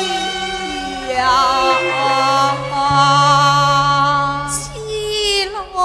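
Cantonese opera (yueqiu) singing: a woman holds one long, drawn-out sung syllable with a slight waver, over instrumental accompaniment whose low bass notes change every second or so. Her line steps down in pitch near the end.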